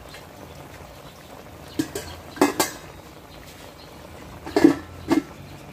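A metal utensil clinks against a metal cooking pot of simmering pork adobo, about six sharp clinks in three pairs, as the pork is checked for tenderness.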